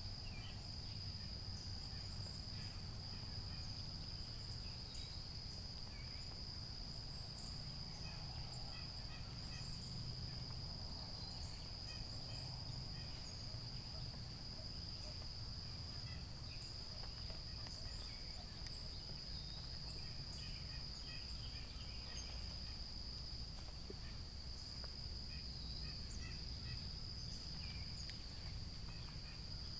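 Steady high-pitched chorus of evening insects, with scattered faint chirps above a low rumble.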